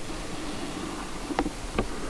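An insect buzzing close by, with two light clicks near the end.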